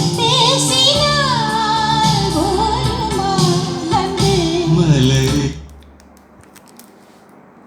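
A song with a female singing voice playing through a Maxwin STK4211 stereo amplifier board and loudspeakers, fed from a USB MP3 player; the music stops abruptly about five and a half seconds in, leaving a faint hum and hiss.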